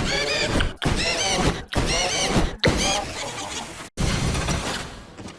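Heavily effect-processed cartoon soundtrack audio: a pitched sound with a warbling, arching pattern, looped in chunks of about a second that cut off abruptly, then fading out near the end.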